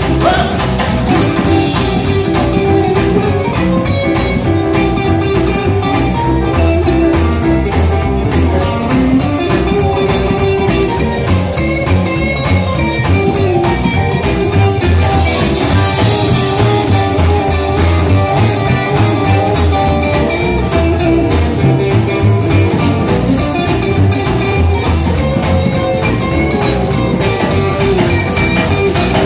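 Rockabilly band playing an instrumental stretch with no singing: electric guitar lead over a steady rock-and-roll beat.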